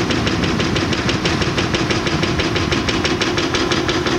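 320-tonne demolition excavator working its attachment down in a concrete pit: a rapid, even clatter of impacts, several a second, over the steady drone of its Cat diesel engine.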